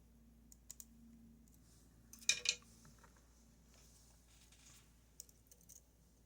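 Light metallic clicks of a lock pick working the pin stack inside a Goal Z pin-tumbler lock, with a louder short clatter of clicks about two and a half seconds in.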